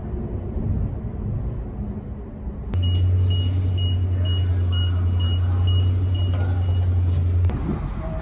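A few seconds of rumbling outdoor background, then a FrontRunner commuter train standing at the platform: a loud steady low hum with a run of about ten high beeps, roughly two a second. The hum stops abruptly near the end.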